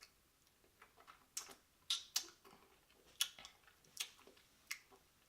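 Close-miked wet chewing of juicy grapes: irregular sharp mouth clicks and smacks, a few a second, with the loudest ones about two and three seconds in.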